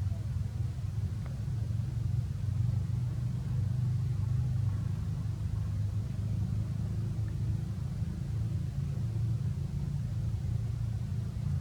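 Steady low rumble with no distinct calls or knocks in it.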